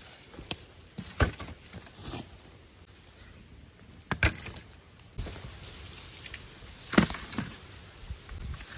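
Long dry wooden branches knocking and clattering as they are handled and dropped onto the ground, with a few sharp knocks; the loudest come about a second in and about seven seconds in.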